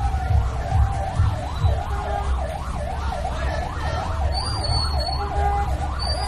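Electronic siren in a fast yelp, its pitch sweeping up and down about two to three times a second, over a low rumble.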